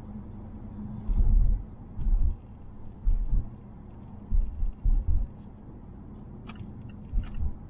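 Mazda Atenza cabin noise while driving: a steady low road rumble broken by several irregular loud low thumps. A couple of sharp clicks and short ticks come near the end.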